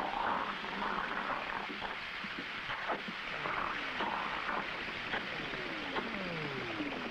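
Eerie ambient soundscape: a rushing noise bed with scattered clicks, and from about halfway several tones sliding slowly down in pitch one after another.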